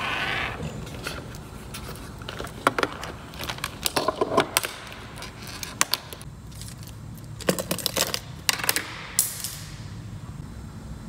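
Hands setting a laptop, a tablet in its case, a computer mouse and pens down on a desk: a brief sliding rustle at the start, then scattered light clicks and knocks of hard objects on the desktop, coming in small clusters until near the end.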